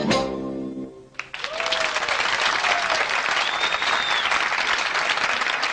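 A live band's final chord rings out and stops about a second in, then audience applause breaks out, with a shout and a high whistle from the crowd.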